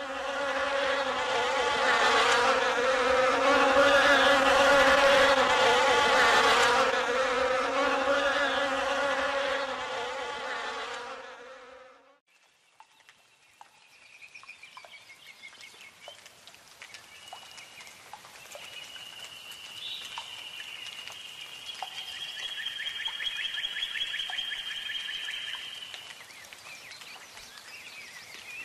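Loud, wavering buzz of a bee, which stops abruptly about twelve seconds in. Faint high whistling tones and light ticks follow.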